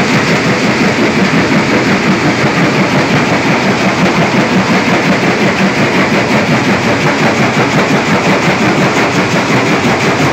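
Vibrating steel pan feeder running, a loud steady rattle with a rapid, even pulse, with crushed stone clattering along the pan.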